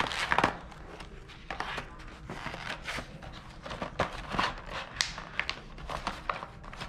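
Cardboard and plastic toy packaging being handled by hand: scattered rustles, scrapes and light taps, loudest in the first half second.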